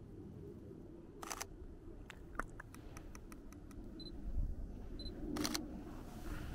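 Sony a7III camera shutter firing a quick burst of about eight clicks, with a few short high beeps and two short hissing sounds around it.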